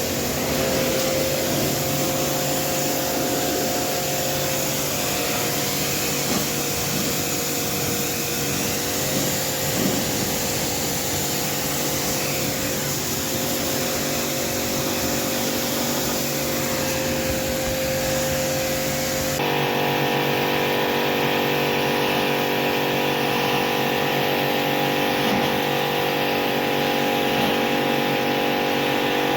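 Steady whine and hiss of an electric motor running. About two-thirds of the way through it switches abruptly to a different steady motor hum with several held tones.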